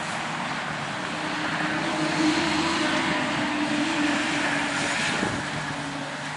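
An engine passing by, most likely an aircraft overhead. A steady drone with a low hum swells over the first few seconds and fades toward the end.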